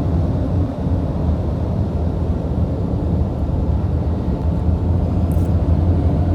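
Steady low engine rumble of a running vehicle, even and unbroken.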